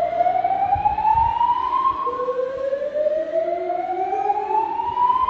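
Building fire-alarm evacuation tone, the slow-whoop kind. It is a loud rising sweep that climbs steadily for about three and a half seconds, drops back and starts climbing again about two seconds in. It is the hotel's early-alert signal, sounding while the cause of the alarm is being investigated.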